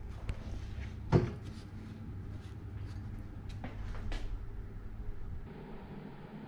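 A few light clicks and one louder knock about a second in, over a steady low hum.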